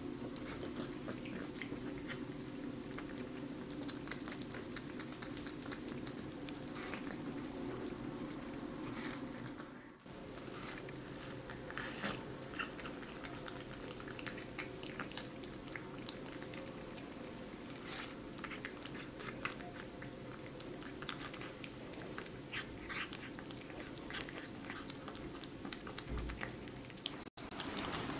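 A kitten licking and chewing at a wedge of watermelon: a run of small irregular clicks and smacks over a steady low hum.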